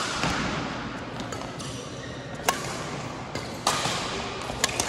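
Badminton rackets striking a shuttlecock during a rally: sharp hits about two and a half and three and a half seconds in, with smaller ticks near the end, over the steady background noise of a busy hall.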